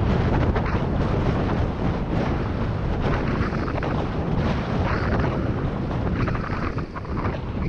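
Wind buffeting the microphone of a helmet-mounted GoPro on a moving bicycle: a steady, deep rushing noise.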